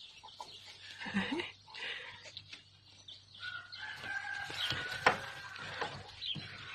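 A rooster crowing once, a long held call from about three and a half to five seconds in, over short rustles and clicks. A single sharp knock near the end of the crow is the loudest sound.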